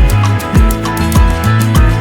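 Background music with a steady beat: a kick drum about twice a second under a bass line, with quick hi-hat ticks.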